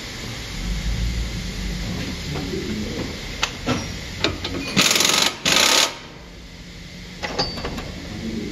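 Pneumatic impact wrench run in two short bursts of about half a second each, near the middle, loosening the front brake caliper bracket bolts. A few sharp metal clinks of tools come just before.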